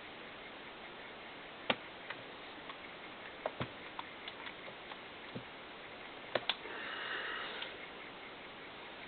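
Metal parts of a Colt M4 .22LR rifle being handled during reassembly: scattered light clicks and taps, two sharp clicks a little over six seconds in, then about a second of scraping.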